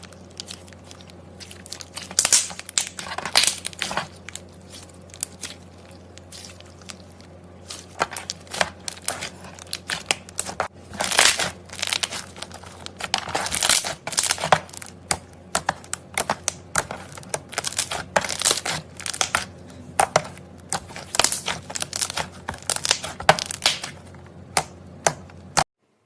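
Slime being squished and stretched by hand, making irregular clusters of sharp crackling and popping. The sound cuts off suddenly near the end.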